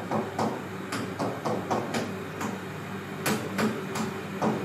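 Pen tapping and scraping on an interactive display's screen while writing, a string of irregular light clicks a few each second.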